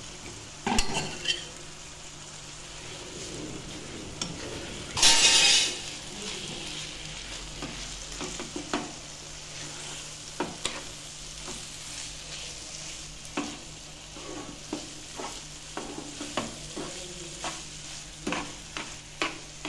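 Spatula stirring ground banana-stem paste through spiced masala in a frying pan: steady sizzling with irregular clicks and scrapes of the spatula against the pan, and one louder burst about five seconds in.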